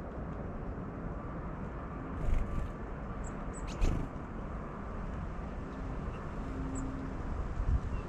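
Outdoor ambience of a steady low rumble, broken by two sharp thumps about two and four seconds in. A few faint, very short, high-pitched bird peeps come from small birds.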